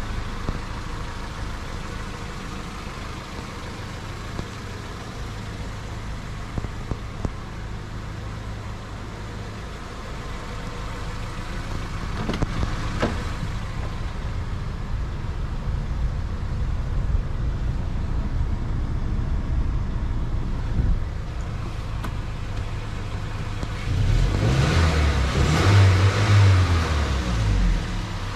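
Toyota MR2 Roadster's 1.8-litre VVT-i four-cylinder engine idling steadily, with a few light clicks. It grows louder and rougher for a few seconds near the end.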